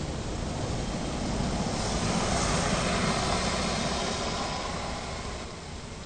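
Engine noise of a passing vehicle: a steady rushing hum that swells to a peak about two to three seconds in and then fades.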